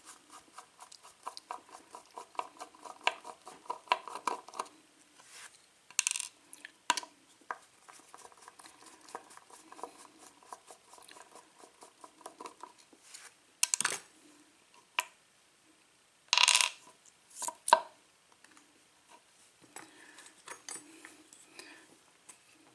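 Small metal clicks and clinks of tools and lock parts being handled while a picked Ilco-Corbin pin-tumbler lock cylinder is taken apart, with a light ringing rattle in the first few seconds and a few louder short scrapes, the strongest a little over halfway through.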